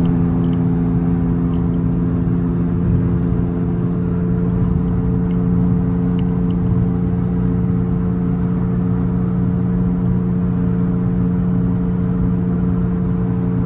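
Steady drone of a car cruising at constant motorway speed, heard from inside the cabin: engine hum holding one pitch over tyre and road noise.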